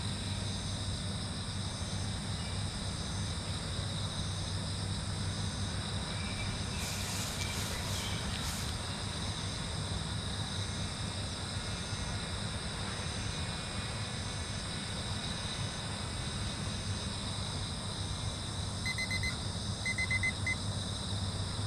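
Steady outdoor background of high insect trilling over a low hum, with a brief rustling noise about seven seconds in. Near the end come a few short electronic beeps from the RC transmitter's flight timer.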